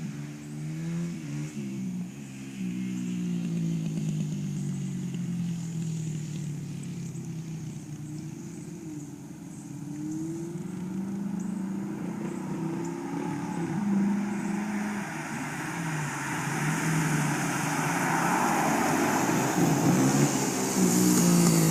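Dodge Challenger SRT8's V8 running through a Flowmaster American Thunder cat-back exhaust, its pitch rising and falling repeatedly as the revs change, growing louder over the last several seconds.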